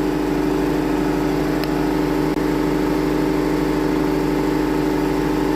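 Wood-Mizer LT70 sawmill running with a steady, unchanging drone.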